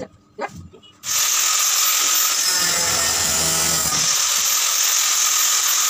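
Electric angle grinder cutting metal, starting abruptly about a second in and then running steadily with a high, hissing whine.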